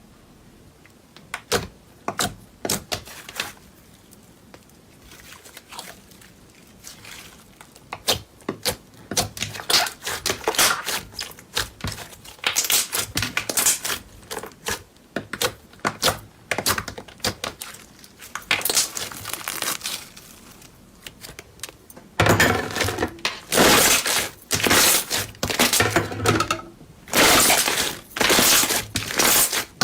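Slime being squeezed and worked by hand, giving irregular sticky clicks, pops and crackles. They are sparse at first, then grow denser and louder in the last third.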